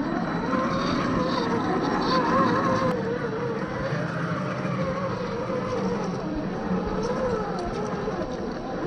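Electric drive motor and gears of a 1/10-scale RC crawler whining, the pitch wavering up and down as the throttle changes, over a rough low rumble.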